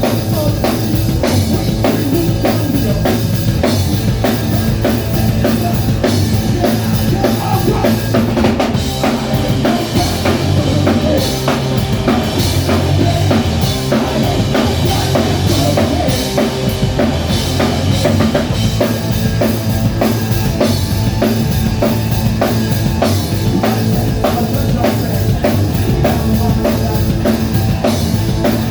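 Live rock band playing a song, drum kit leading with kick and snare under bass and guitar.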